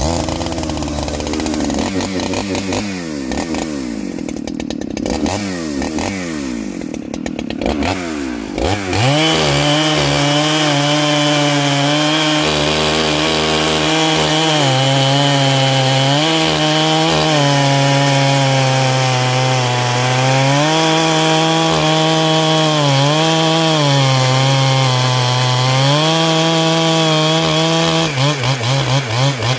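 A Neo-Tec Husqvarna 395-clone two-stroke chainsaw fires up and revs unevenly for about eight seconds, its pitch sliding up and down. It then runs at full throttle through a log, the note dipping each time the chain bogs under load. Near the end it drops to a lower, pulsing note.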